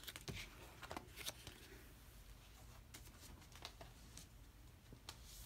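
Quiet room tone with a few faint taps and rustles of photocards and an album being handled, most of them in the first second and a half.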